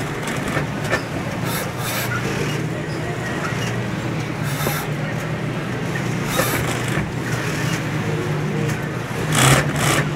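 Industrial sewing machine running while fabric is fed through it, a steady motor hum with a few brief louder bursts.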